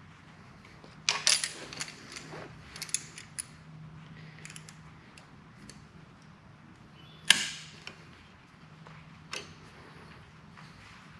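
Metal clicks and clatter of locking pliers being clamped and worked on a lathe tailstock handwheel, with a cluster of clicks about a second in and one sharp metallic snap with a short ring about seven seconds in.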